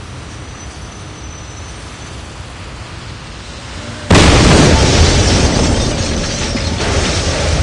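An explosion sound effect. Over a steady low background rumble, a sudden loud blast goes off about four seconds in, and it carries on as a long, loud rumble that barely fades.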